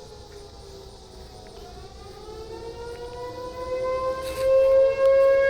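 Outdoor warning sirens sounding the attack signal, a wailing tone from more than one siren that dips and then rises in pitch. It swells much louder about four seconds in.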